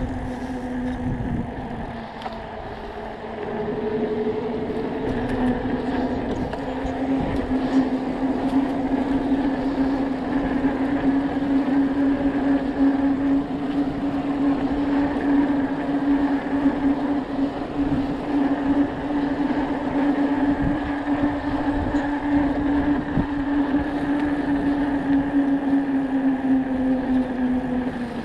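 Electric bike cruising along with a steady whine from its drive. The whine falls away about a second in and comes back up around four seconds, over a rushing low noise.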